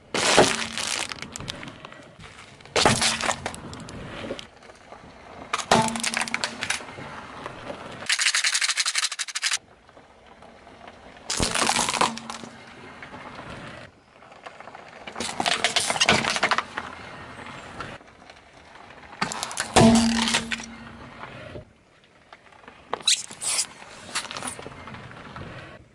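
A car tyre rolling over and crushing one object after another, starting with a wrapped sweets packet: about seven short bursts of crackling and crunching a few seconds apart.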